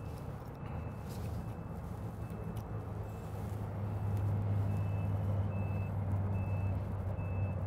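Heavy vehicle engine running, growing louder about four seconds in. A reversing alarm beeps evenly in the second half.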